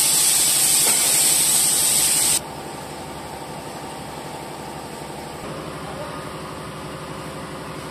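A loud hiss of escaping compressed air that cuts off sharply about two and a half seconds in. Under it is the steady low hum of the Renault Premium DXI 11 truck's diesel engine idling.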